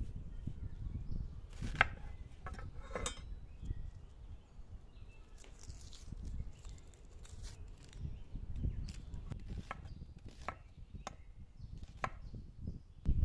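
Chef's knife cutting onions on a stone countertop: irregular sharp knocks as the blade strikes the stone.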